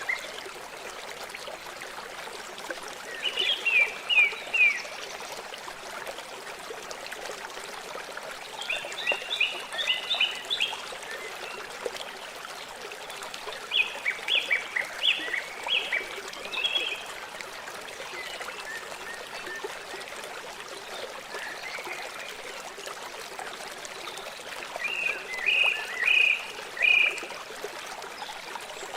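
River water flowing steadily, with a bird calling over it in four bursts of quick, high notes.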